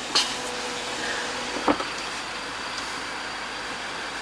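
Steady noise of an idling car and its surroundings coming in through the open driver's window, with a sharp click about a second and a half in.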